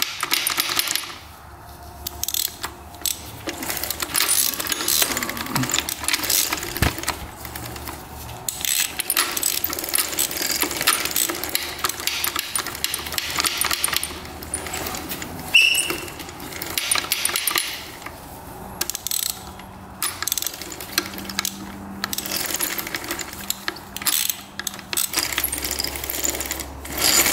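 Hand tools working on a dirt bike engine's gear-shift mechanism: irregular metal clicking and clinking of a ratchet, wrench and loose engine parts, with one brief high squeak about halfway through.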